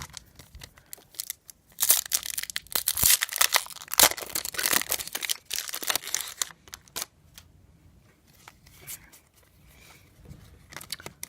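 Foil trading-card pack wrapper being torn open and crinkled, a dense papery crackle for a few seconds, then scattered lighter rustles and clicks as the cards are handled.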